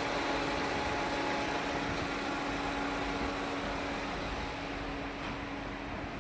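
A steady mechanical hum with a constant low tone over an even background noise, easing slightly near the end.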